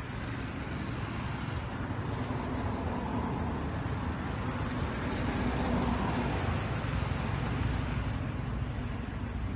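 Low rumble of motor traffic, swelling to its loudest about six seconds in and then easing off.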